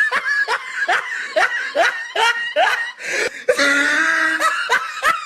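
A person laughing hard in short, high, rising bursts, about two to three a second, with a longer held high note partway through.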